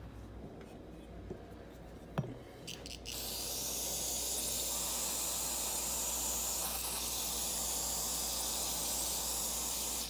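Aerosol carburetor cleaner sprayed through a red extension straw into a carburetor body to flush out dirt. A click and a few short spurts come about two to three seconds in, then a steady hiss lasts about seven seconds and stops abruptly.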